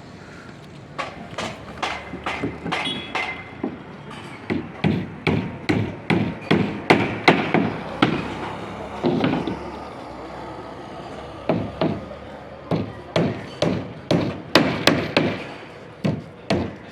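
Runs of sharp knocks or blows, about two to three a second, broken by short pauses about four seconds in, near the middle and again after the middle.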